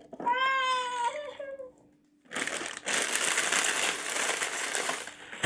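Plastic wrapping crinkling and crackling for about three seconds, as an instant noodle packet is handled. Before it, about a second in, there is a short wailing cry from a baby.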